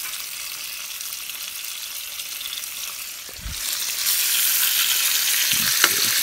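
Bacon sizzling and frying on a flat griddle over a camp stove, a steady spattering hiss that grows louder a little past halfway through. A short knock near the middle and one light click near the end.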